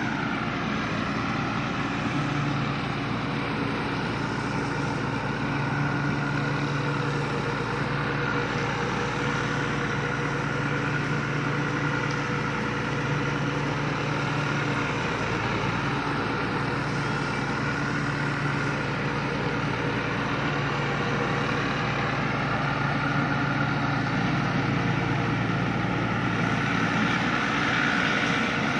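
Combine harvester running steadily: an even engine hum with a high whine above it.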